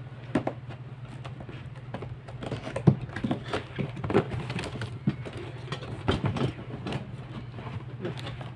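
Cardboard shipping box being torn open by hand: an irregular run of rips, crackles and rustles of cardboard and packaging, with a few sharper cracks, over a steady low hum.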